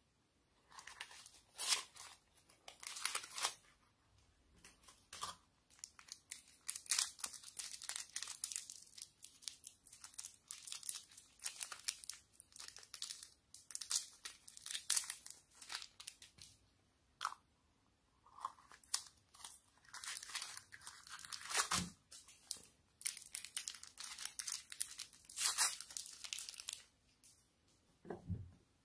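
Soft modelling clay being pulled apart and pinched by hand: irregular bursts of crackly tearing and crinkling with short pauses between them. There is one sharper knock about three quarters of the way through.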